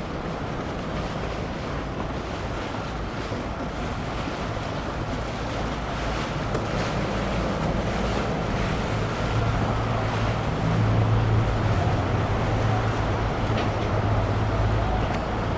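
Quad Mercury Racing 400 outboard engines on a Fountain 38SC running past with a steady low drone that grows louder about nine seconds in, over the rush of the boat's wake and wind on the microphone.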